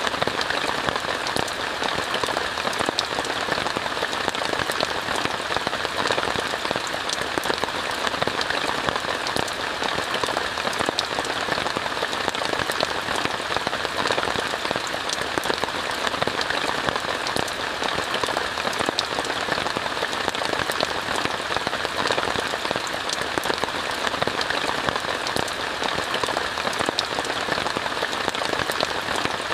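Steady rain falling on a tent, heard from inside: an even hiss of rain with a dense scatter of small drop ticks, unchanging throughout.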